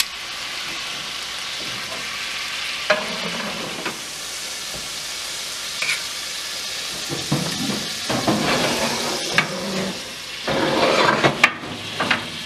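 Moose roast sizzling in butter in a cast-iron skillet as it finishes browning, a steady frying hiss. Metal tongs click against the pan a few times, and in the second half there is rougher scraping and clatter as the meat is lifted out and the skillet is handled.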